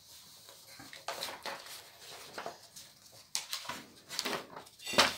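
Handling noises at a desk: several short rustles and soft knocks, the loudest near the end.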